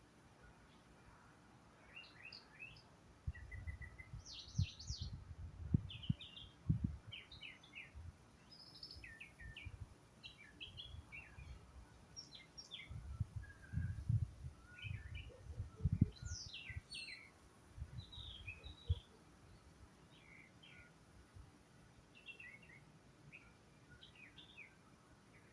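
Several wild songbirds chirping and calling in short, high, overlapping phrases. Irregular low rumbles come and go through the middle of the stretch.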